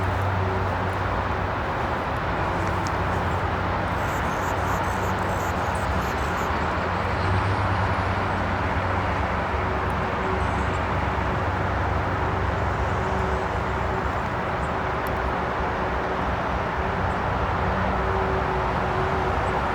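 Steady distant traffic noise: an even roar with a low engine-like hum underneath, unchanging throughout.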